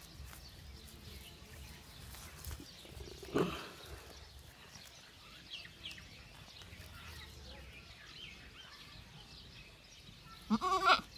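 Goats bleating: one short call about three seconds in and a louder bleat near the end, with faint bird chirps in between.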